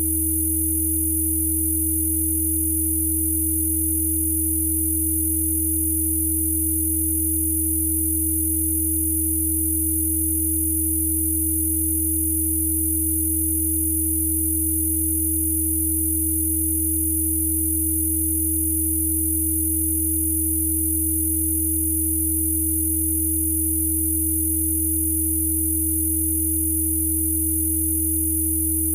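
Electronically generated Rife frequency tones: several pure sine tones sounding together, a deep low hum, a steady middle tone and a very high whine, all held without any change.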